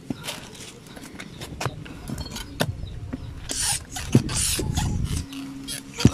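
PCP high-pressure hand pump being pumped, with clicks and knocks from the pump mechanism and two loud rushes of hissing air about three and a half and four and a half seconds in. The pump is working near the top of its test fill, its gauge close to 1.5.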